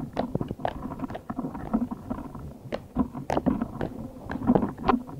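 Slime being squished and kneaded by hand as two slimes are mixed together, with many irregular sticky pops and crackles.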